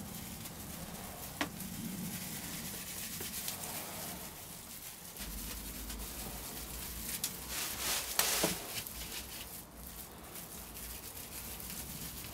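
Paintbrush dabbing and working polyester resin into fiberglass woven roving, with soft rustling from gloved hands and the plastic-covered work area. A sharp click comes about a second and a half in, and a louder rustle about eight seconds in.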